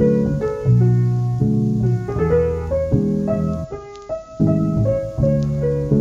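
Background music: a piano playing a series of chords, each struck and held for under a second, with a brief drop in level about two thirds of the way in.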